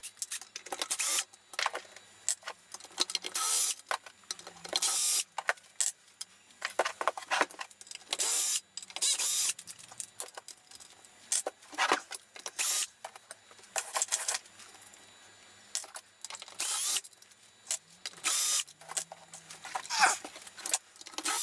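Metal clinks, clatters and knocks in irregular short bursts as screws are taken out of the rear module of a heavy finned metal electronics box and the box is handled and turned on the bench.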